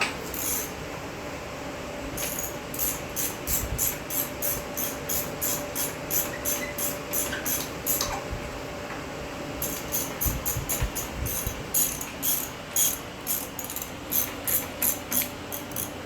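Hand-operated ratchet clicking steadily, about two to three clicks a second, as it pulls the heavy engine block into place. The clicking stops for a moment about eight seconds in, then starts again.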